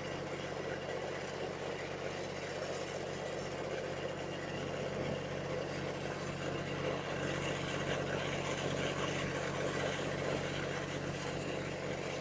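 Steady low engine-like hum under a constant hiss, unchanging throughout, like a motor left idling.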